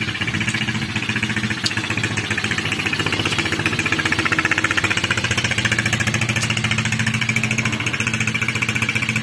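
Small ATV (quad bike) engine idling steadily with a fast, even pulse.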